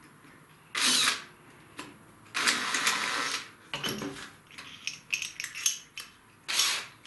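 Drill chuck being tightened by hand onto square wooden stock, giving a run of quick ratcheting clicks, along with rustling and knocks as the drill and stick are handled.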